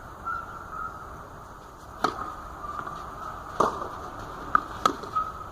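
Tennis ball being hit during a rally: a few sharp pops, the first about two seconds in, then two more in quick succession near the end.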